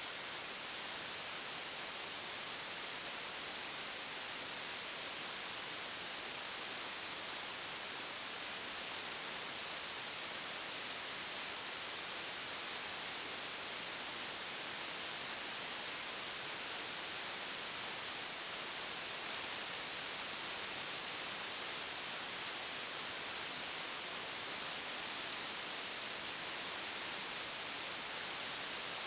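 Steady, even hiss with nothing else heard: the recording's own electronic noise, with no sound from the larva.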